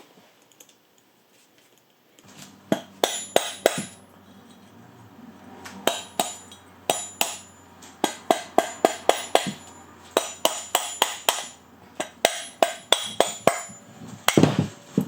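Sharp metallic clicks with a slight ring, in quick runs of four to eight at about four or five a second, from hand tools working the compressor housing off a BV43 turbocharger's old core. A louder knock comes near the end.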